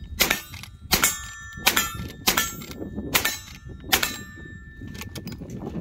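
Lever-action rifle firing six shots about two-thirds of a second apart, each shot followed by the ringing clang of a steel target being hit.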